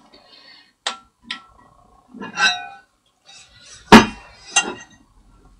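Metal clicks and clinks as an Autoprop propeller blade is handled while a lip seal is worked into it by hand: two light clicks, a ringing clink about two seconds in, and a sharp knock, the loudest, about four seconds in, followed by a lighter one.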